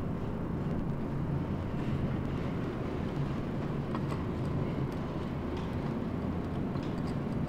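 Steady low rumble and hum of background noise around a claw machine, with a few faint clicks.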